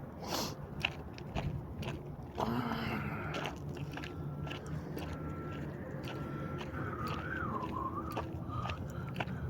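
Footsteps crunching along a walking trail. From about seven seconds in there is a wavering whistle.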